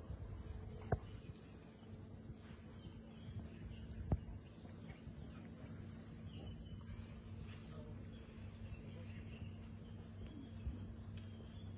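Faint outdoor ambience with a steady high-pitched insect drone, and two soft knocks about one second and four seconds in.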